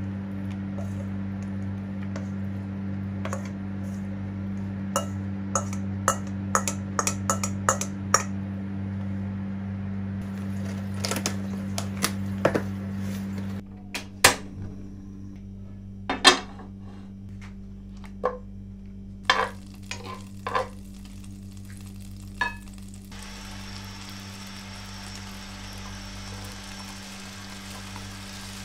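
A wooden spatula scrapes and knocks chopped pork out of a stainless steel bowl into a plastic tray, over a steady low hum that stops partway through. After that come a few sharp single clicks at the gas stove. A faint steady hiss follows as the pan heats, and the pork is tipped into the oiled pan near the end.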